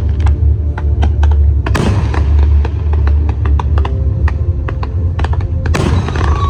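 Fireworks going off: a rapid run of sharp crackling pops, several a second, broken by two big bangs, one about a second and a half in and one near the end, over a steady low rumble.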